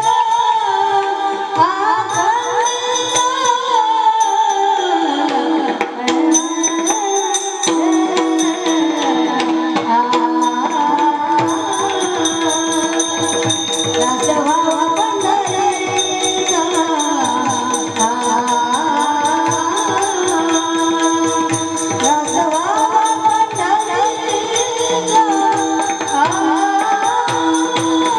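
Marathi kirtan singing: a voice carries a gliding, ornamented devotional melody over steady held accompaniment. A fast, even jingle of metal percussion grows denser about eleven seconds in.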